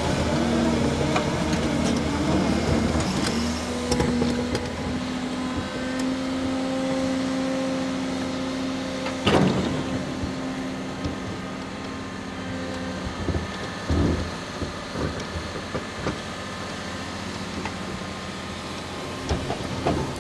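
Cat 330 tilter excavator at work: engine and hydraulics running with a steady droning tone, and sharp clanks about nine seconds in and again around fourteen seconds.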